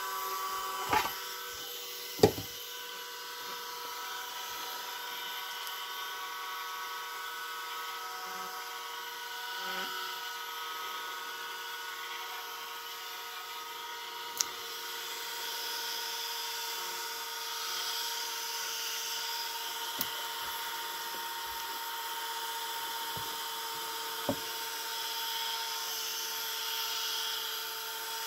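Gyro of a Sfena artificial horizon spinning on 115 V 400 Hz power: a steady electric whine with a light hiss. Several knocks and ticks come from handling the instrument, the loudest about two seconds in.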